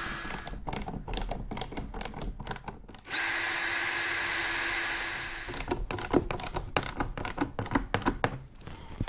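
Cordless drill spinning at a steady speed as it bores a mounting hole through the skid plate into the bumper's underside. It runs briefly at the start and again for about two and a half seconds from three seconds in. Between and after the runs come irregular clicks and rattles of handling tools and parts.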